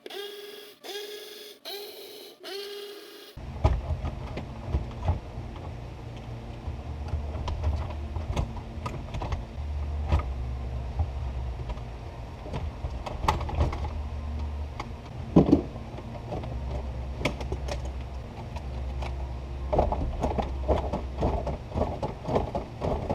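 Scattered clicks, knocks and rattles of hand tools and plastic parts while the shifter assembly is unbolted and worked loose from a car's centre console, over a low hum. In the first three seconds there is a short pitched, wavering sound in four pieces.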